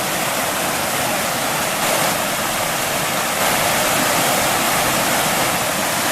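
River water rushing steadily, an even unbroken rush.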